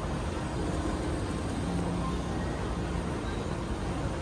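Steady low rumble and hiss of moving vehicles, without sudden events.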